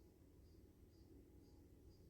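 Near silence: faint low room hum, with a faint high chirp repeating about twice a second.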